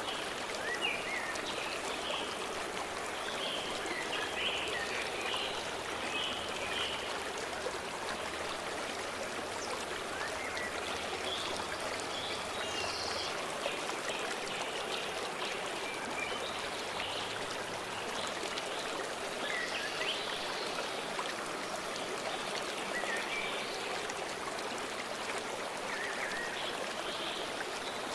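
A stream flowing steadily, with small birds chirping and singing here and there above the water.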